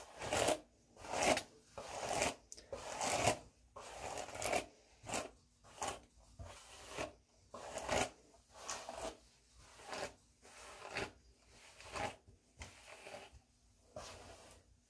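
Hairbrush pulled through long, water-sprayed hair, brushing out knots: a run of short rasping strokes, a little more than one a second.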